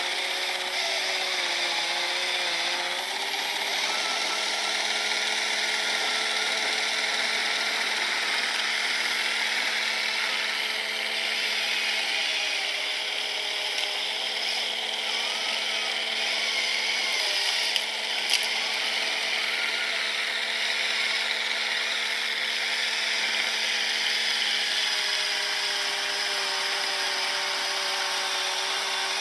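3D-printed RC snowblower and its RC truck running on electric motors, a steady whine over a whirring rush. The pitch dips briefly a couple of seconds in and again about seventeen seconds in, and two sharp clicks come near eighteen seconds.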